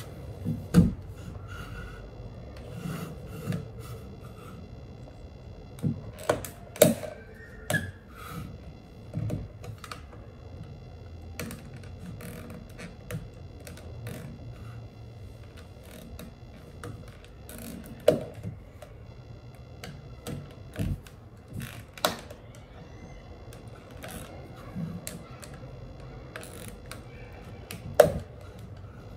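Irregular clicks and knocks of a thin metal tool and hands working at the plastic and metal cyclone assembly of a Dyson V8 stick vacuum during disassembly. A handful of sharper knocks stand out, about a second in, around seven seconds, and near the end.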